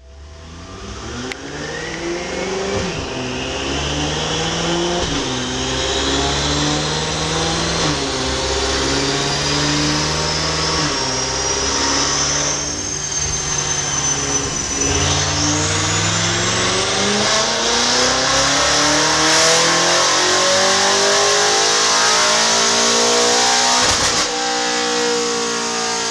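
BMW M5's Stage 2-tuned twin-turbo V8 with a TACHYS aftermarket exhaust, heard from inside the cabin, accelerating hard through the gears. The engine note climbs and then drops at each upshift every few seconds, with a rising whine above it. Near the end there is a sharp crack, and the engine then runs at a steadier, lower pitch.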